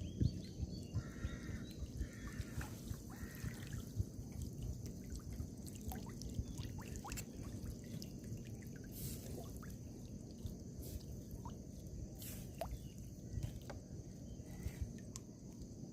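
Scattered drips and small splashes of water over a low, steady rumble.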